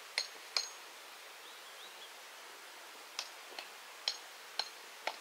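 Sharp metallic clinks at uneven intervals, about seven in five seconds, each with a brief high ringing tone, like metal striking metal.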